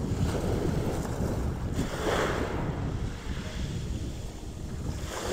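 Small sea waves washing onto the beach, the hiss swelling and fading every couple of seconds, with wind buffeting the microphone.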